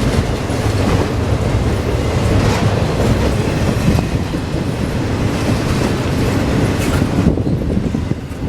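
Freight train cars rolling past close by with a steady, loud running noise; about seven seconds in the higher hiss falls away and the sound drops off.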